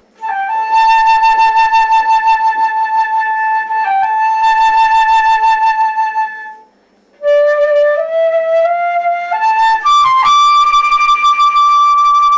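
A flute playing a slow melody alone: a long held note with two brief dips, a short pause, then a phrase climbing step by step to a long higher held note.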